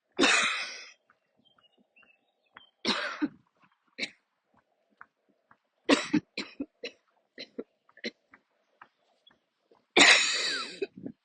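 A woman's coughing attack: a long loud cough just after the start, another about three seconds in, a quick run of short coughs around six seconds, and a long loud cough near the end.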